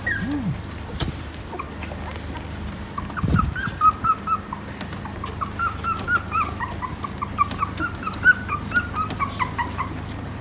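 Young Phu Quoc Ridgeback puppy whimpering in a long run of short, high squeaks, two or three a second, starting a few seconds in and stopping near the end.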